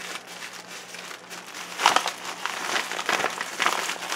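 Crinkling and rustling of a torn mailing bag and its wrapped contents as they are opened and dug through by hand, in irregular rustles, the loudest about two seconds in.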